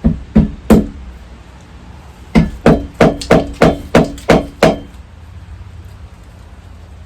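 Hammer blows, three in quick succession, then after a pause of over a second eight more at about three a second.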